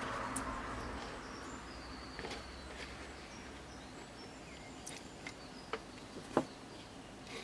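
Faint steady background noise with scattered light clicks, the sharpest about six seconds in, and a few short high chirps.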